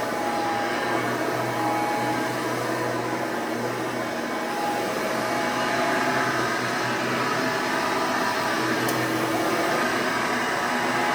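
Hoover Elite II Total System Performance 430 upright vacuum cleaner running steadily, its motor giving an even whirring hum with a few steady tones.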